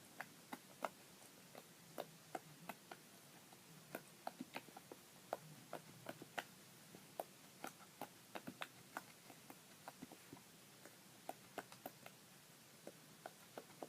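Slippery homemade slime being squished and stretched by hand, giving soft, irregular clicks and pops, a few each second.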